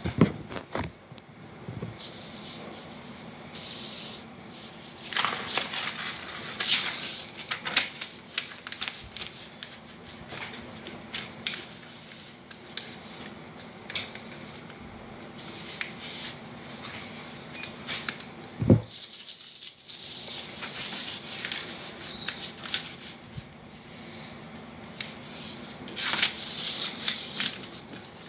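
A sheet of paper rustling, sliding and crackling on a stone floor as it is folded and the creases are pressed flat by hand, in uneven bursts. One sharp tap comes about two-thirds of the way through.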